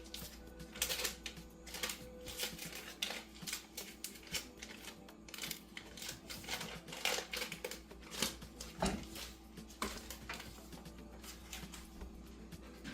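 Two sticks of butter starting to melt in a heating pot, crackling and popping irregularly several times a second, over a steady low hum.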